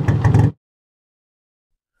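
A loud engine running with a rapid throbbing pulse, cut off abruptly about half a second in, followed by dead silence.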